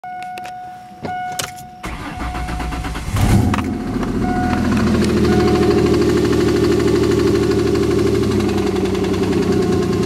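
Dashboard warning chimes, then the SVT Contour's swapped 3.0 L Duratec V6 cranks and catches about three seconds in and settles into a steady idle with a rhythmic engine knock.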